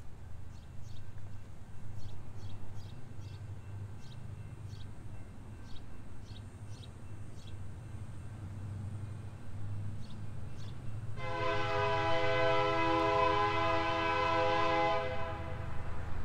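Locomotive air horn sounding one long chord of several notes together for about four seconds, starting about eleven seconds in, over a steady low rumble.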